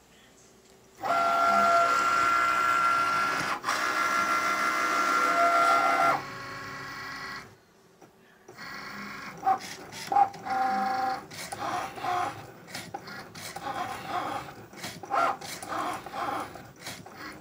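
Cricut Maker cutting machine's motors running as it drives the mat and blade carriage: a steady whine for about five seconds, a short pause, then quick stop-start whirring as the blade cuts the pattern.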